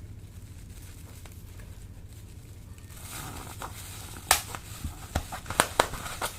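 Slime being worked by hand, crackling with a quick run of sharp clicks and pops that begins about halfway in, over a faint low hum.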